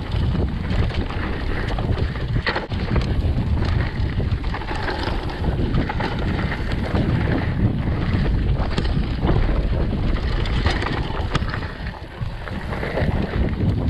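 Mountain bike descending a dirt trail at speed: a steady low rumble of tyres and wind buffeting the microphone, with frequent clicks and rattles as the bike goes over bumps. The noise eases briefly about twelve seconds in.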